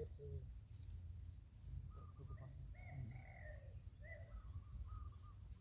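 Wild birds calling in short, repeated arching notes, with dove-like cooing among them, over a low steady rumble.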